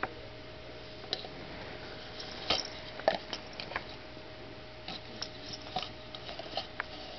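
Red plastic party cup tapping, knocking and crinkling irregularly as a cat pushes its head into it and shoves it about, the loudest two knocks about two and a half and three seconds in.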